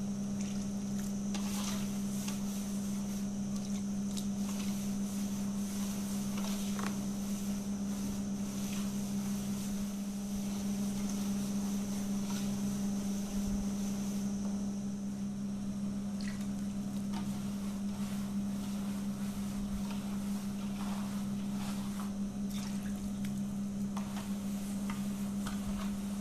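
A steady low hum, with faint scraping and rustling of hands rubbing crumbly semolina dough against an aluminium basin.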